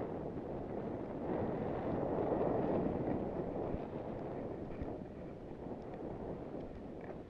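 Skis sliding over snow, a steady rushing noise with wind buffeting the microphone, swelling louder from about a second in and easing off after about three and a half seconds.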